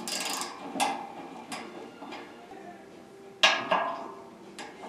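Snap-on 3/8-inch-drive torque wrench and socket clicking and clinking on the small turbine bearing retainer screws as they are brought to 30 inch-pounds. A short ratcheting rasp at the start, a few light metal clicks, and one sharper click about three and a half seconds in.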